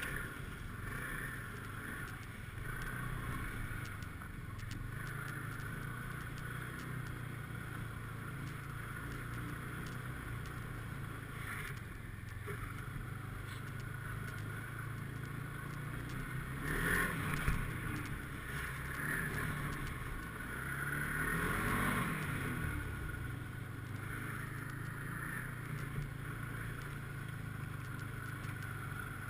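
Snowmobile engine running steadily under way, its note swelling and falling back with the throttle twice, about two-thirds of the way through.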